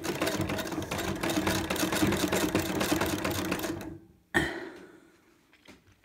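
Victorian Singer sewing machine, driven by a baler-twine belt, running and stitching through seatbelt webbing with rapid, even needle ticking for about four seconds, then stopping. A single sharp knock follows shortly after.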